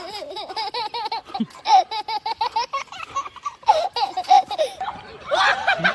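High-pitched laughter: rapid runs of short ha-ha pulses, breaking off for a moment about three seconds in, then starting again.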